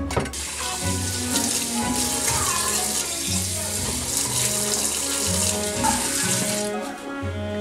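Kitchen faucet running in a steady stream into a sink while hands are rinsed under it, turned off about a second before the end. Background music with a bass line plays throughout.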